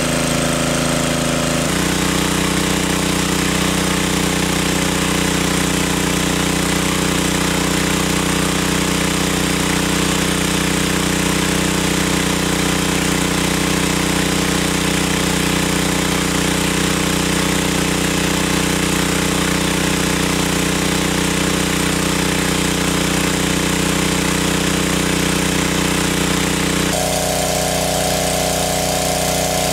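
Small engine-driven water pump running steadily at constant speed, pumping water out of the pool; its tone shifts slightly about two seconds in and again near the end.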